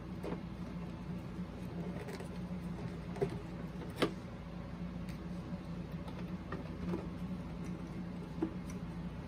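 Occasional faint clicks and taps of a boombox's plastic cabinet being handled and pressed back together, a few sharp clicks, the loudest about four seconds in, over a steady low hum.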